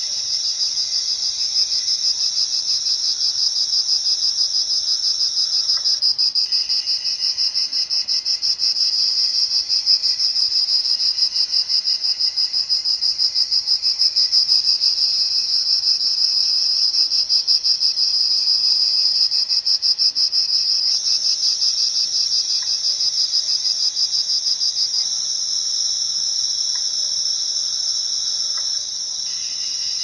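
Cicadas singing: a loud, continuous, high-pitched buzz with a fine rapid pulse, shifting abruptly in level and tone a few times.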